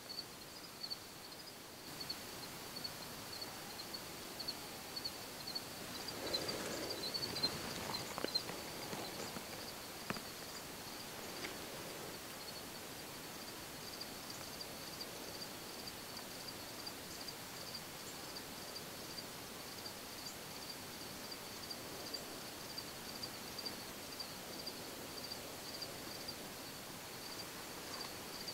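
Quiet woodland ambience with an insect chirping in a steady, high-pitched pulsing rhythm. A brief soft rustle comes about six to eight seconds in.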